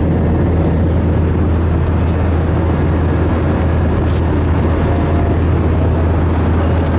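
Airbus A321 cabin noise in the climb after takeoff: the jet engines and airflow make a steady, loud, low drone.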